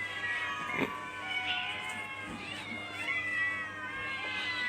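Several cats meowing over one another at feeding time, long overlapping meows with a short click about a second in.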